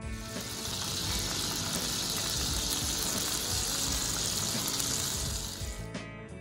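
Chicken seekh kebabs sizzling as they shallow-fry in hot oil in a pan, a steady hiss that cuts off suddenly near the end. Faint background music plays underneath.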